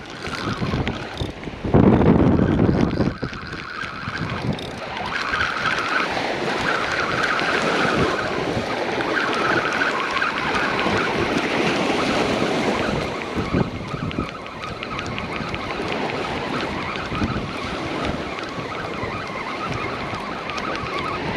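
Ocean surf washing and wind blowing across the microphone, with a heavy gust buffeting it about two seconds in.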